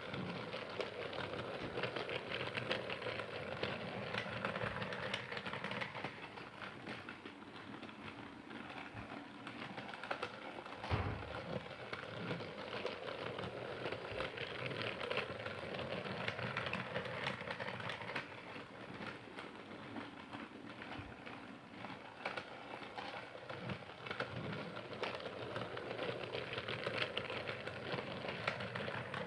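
Toy Percy train engine running along its track: a steady rapid clicking clatter that grows louder and softer every several seconds.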